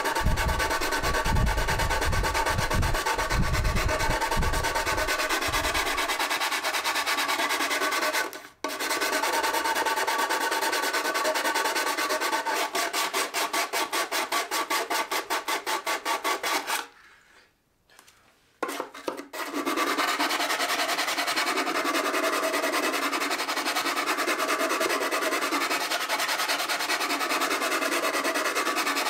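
Hand sanding with sandpaper folded over a wooden stick, rubbing back and forth in quick strokes over the red Bondo glazing putty on a 3D-printed helmet's visor. This is smoothing away the rough marks left by the print supports. The rasping stops briefly twice, about 8 seconds in and again a little past halfway.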